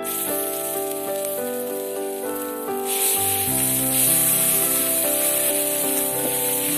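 Masala frying in hot oil in a steel kadai, a steady sizzle that grows louder about three seconds in. Background music with held notes plays under it.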